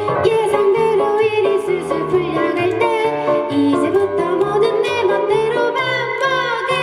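Live acoustic pop song: a female voice singing over a plucked guitar accompaniment.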